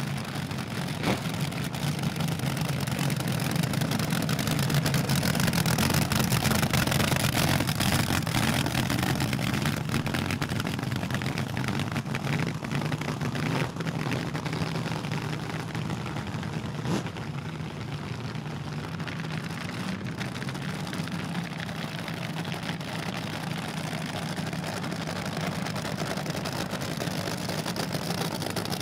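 Supercharged front-engine Top Fuel dragster engines cackling at idle, a steady loud rumble that grows louder a few seconds in and eases off after the middle.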